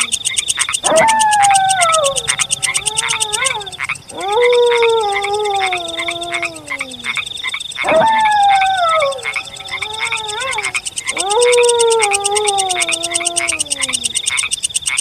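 Wolf howling four times, each howl a long call that slides down in pitch over about three seconds. Underneath runs a steady night chorus of frogs croaking and a fast high-pitched trill.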